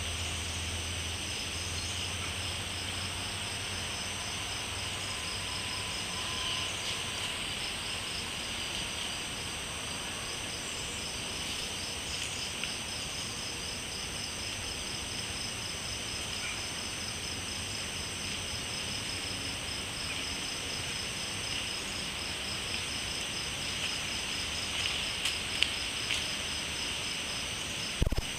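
Night chorus of crickets and other insects: several steady, high-pitched trills, one of them pulsing evenly, with a few sharp clicks near the end.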